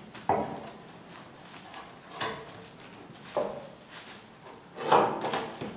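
A cast iron bathtub being shifted on wooden boards and rails to get it off a pallet. About four short knocks and scrapes come a second or two apart, the loudest near the end.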